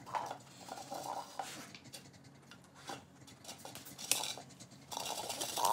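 Great Pyrenees dog nosing plastic cups on a hard floor: a few light taps and scrapes of the cups, with a louder stretch of scuffling noise near the end.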